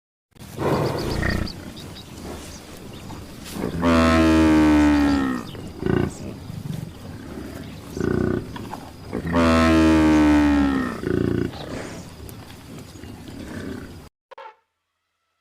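Large bovine lowing: two long, deep mooing calls that fall slightly in pitch, with short grunts between and after them.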